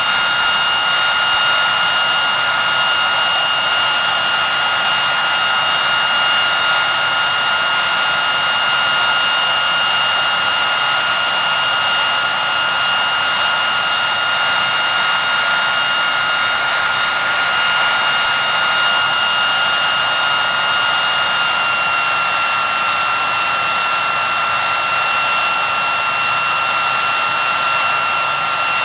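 Rolls-Royce Spey turbofans of a parked Hawker Siddeley Nimrod running on the ground: a steady jet rush with a strong high-pitched turbine whine. The whine dips slightly in pitch about three-quarters of the way through.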